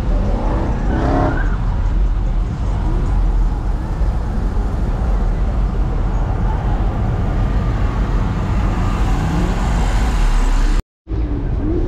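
A car engine running with a steady low rumble, a voice briefly heard near the start. The sound drops out for a moment near the end.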